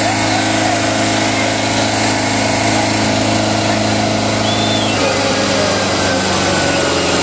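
Kubota tractor's diesel engine running hard and steady while it hauls a long train of loaded trolleys. Its note shifts about five seconds in.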